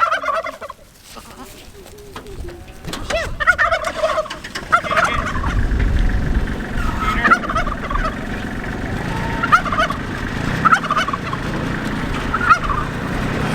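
Short warbling farm-animal calls, repeated every second or so, over a Kubota tractor's diesel engine running. The engine's rumble gets louder about five seconds in.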